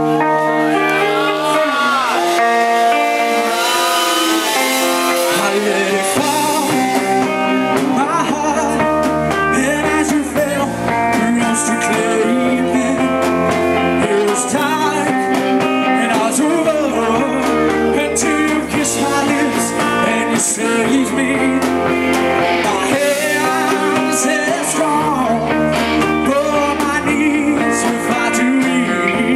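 Live rock band playing a song: a male singer over electric guitars, bass guitar and drums, through a PA. The bass comes in about eight seconds in.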